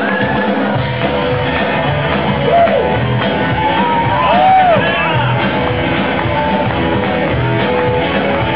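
Loud live music on stage, with a singer shouting and singing into a microphone over the band.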